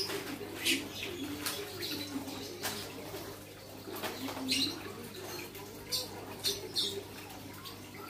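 A caged lovebird giving short, sharp chirps, about seven spread through, with a quick run of three about six seconds in. These are the clipped calls of a young bird still learning its chattering 'ngekek', which is still very short.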